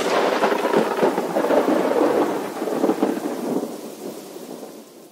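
Thunder sound effect: a loud crackling thunderclap that starts suddenly and dies away over the last couple of seconds.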